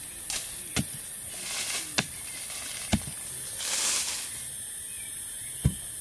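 A few dull, irregularly spaced thuds of a wooden digging stick striking the forest soil as a post hole is dug, with a brief rustle about four seconds in. A steady high-pitched drone of rainforest insects runs underneath.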